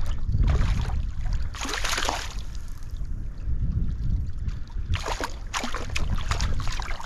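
A hooked trout splashing and thrashing at the water's surface, in bursts from about five seconds in, over a steady low rumble of wind on the microphone and stream water.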